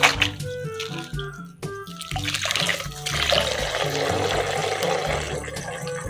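Background music with a steady repeating bass line, and water running for about three seconds partway through.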